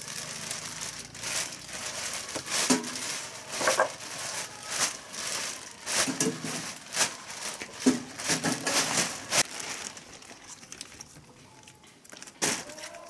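Crinkling, tearing rustles of dry material being handled, in quick irregular bursts that thin out about ten seconds in, with one sharper crackle near the end.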